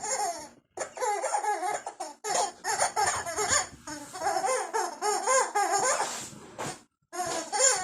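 A noise-making dog toy playing recorded laughter in several bursts, with brief drop-outs about a second in, around two seconds in and near the end.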